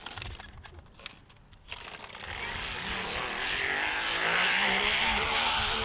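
Vehicle noise: a steady rushing sound that comes in about two seconds in and grows louder.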